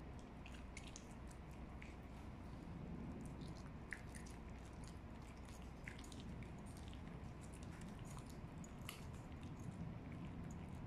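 West Highland White Terrier chewing a toothbrush-shaped dental chew treat: faint, irregular small crunching clicks.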